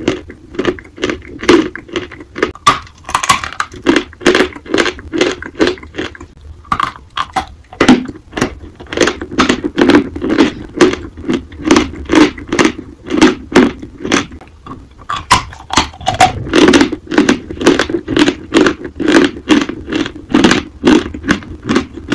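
Lump chalk being chewed close to the microphone: a steady run of loud, crisp crunches at about two a second, pausing briefly twice.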